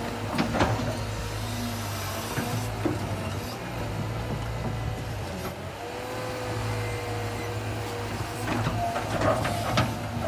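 Cat 320 hydraulic excavator's diesel engine running under load, with a hydraulic whine that shifts in pitch as the boom and bucket work. The bucket knocks and cracks against stump roots and soil, a few times early on and in a cluster near the end.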